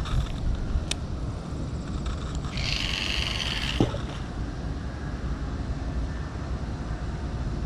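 Steady low rushing of a fast-flowing, high river. A brief high whirring sound comes a few seconds in, with a couple of faint clicks.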